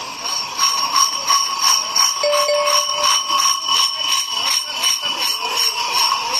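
Many large metal bells worn on kukeri dancers' belts clanging in a steady rhythm, about three strokes a second, as the costumed dancers march and sway.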